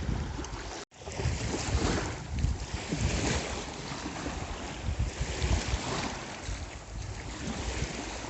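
Wind buffeting the microphone over the wash of the sea, gusty and uneven. The sound cuts out for an instant about a second in.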